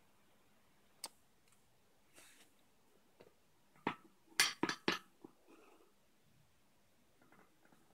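Small hand tools handled and set down on a hard floor: a single click about a second in, then a quick run of sharp clinks and knocks around four to five seconds in.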